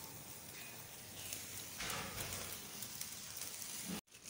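Meat sizzling on a charcoal grill: a steady hiss with scattered crackles and pops. The sound cuts out briefly near the end.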